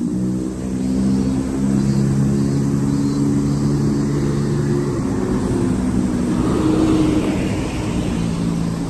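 Road traffic: a vehicle engine drones steadily, then from about five seconds in a passing vehicle brings a swelling rush of noise that fades again near the end.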